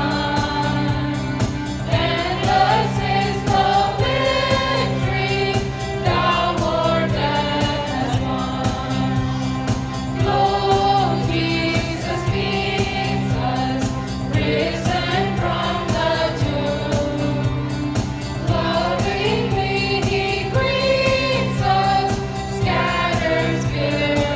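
Mixed choir of men, women and children singing a Christian song together.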